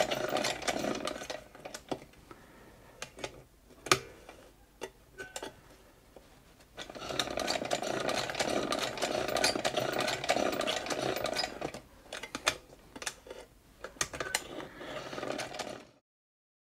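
Vulcan toy chain-stitch sewing machine running in short bursts of rapid mechanical chatter, with pauses broken by a few clicks between runs. The sound stops abruptly near the end.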